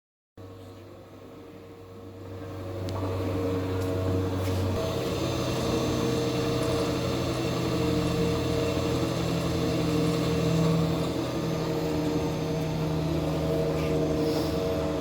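Ribbon blender's direct-coupled worm-gear motor running: the sound cuts in suddenly, builds for a couple of seconds, then holds a steady mechanical hum and whine.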